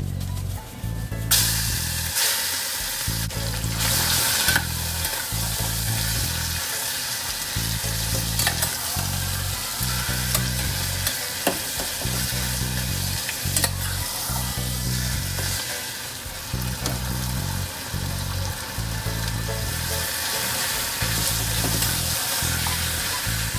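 Chicken thigh pieces going into hot oil with whole spices in a small pot: a loud sizzle starts about a second in and carries on as steady frying while a spatula stirs and scrapes them, with a few sharp taps against the pot. Background music with a steady low beat plays underneath.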